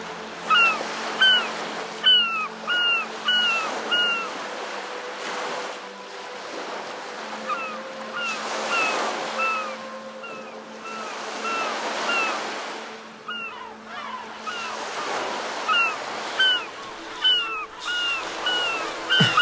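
Seabirds calling over the wash of sea waves: short falling cries in quick runs of about two a second, loudest near the start and near the end, fainter in between.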